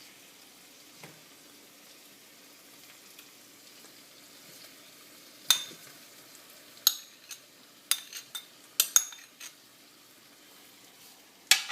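Pan of vegetables frying in oil with a faint steady sizzle; from about halfway a spoon knocks and scrapes against the pan in a run of sharp clinks as the mixture is stirred.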